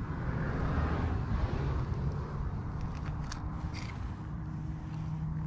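A knife cutting through a sardine on a rock for bait, with a few short clicks and scrapes around the middle, over a steady low rumble.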